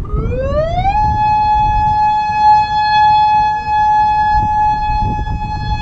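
Federal Signal Modulator II 8032B electronic outdoor warning siren sounding a tone that rises over about a second, then holds at one steady pitch, between its recorded test announcements. Low wind rumble on the microphone underneath.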